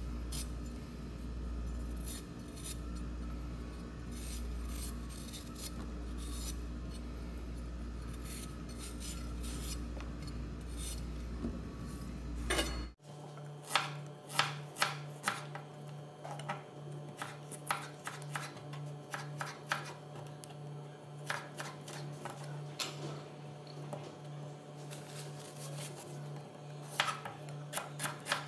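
Kitchen knife cutting fresh ginger and then a red onion on a plastic cutting board: irregular taps and scrapes of the blade against the board, over a steady low hum. The hum changes about 13 seconds in, and after that the taps come sharper and more often.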